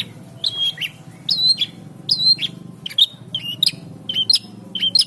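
Long-tailed shrike (cendet) singing: a rapid run of sharp, high whistled notes, often in pairs, several a second.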